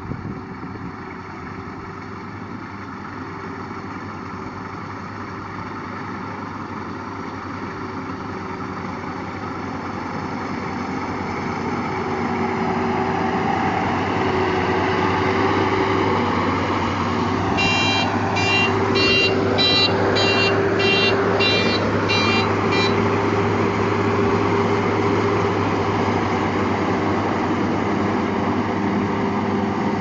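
Rice combine harvester running steadily as it cuts and threshes a rice crop, its engine drone growing louder after a while as the machine comes closer. About halfway through, a run of short high beeps, about two a second, lasts some five seconds.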